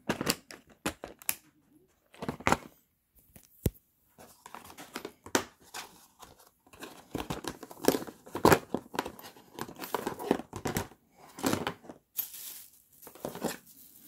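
Hard plastic being handled: a small clear plastic accessory box clicking, knocking and scraping as it is moved about and set into a moulded plastic tool case. The sounds come in irregular bursts, with one sharp click a few seconds in.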